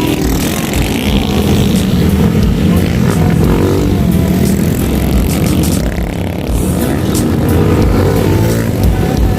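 Motorcycle engines running, their pitch rising and falling.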